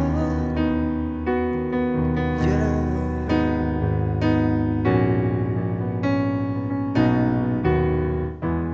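Keyboard played with a piano sound: slow chords, a new one struck about every second and left to ring, as the song's closing instrumental winds down. The last chord comes near the end and rings out, fading.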